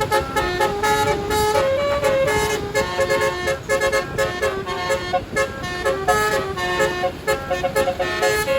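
Tour bus's basuri telolet horn, a multi-trumpet musical horn, playing a fast melody of short toots in changing pitches.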